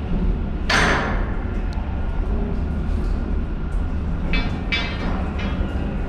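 Steady low rumble on a container ship's deck, broken by a loud sharp clash a little under a second in and a short run of ringing metal clanks about four to five and a half seconds in, from steel lashing rods and buckles.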